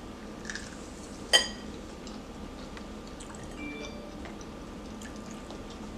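A utensil clinks once against a dish about a second and a half in, with a short ringing tail. A few softer ticks and taps of tableware come before and after it, over a faint steady hum.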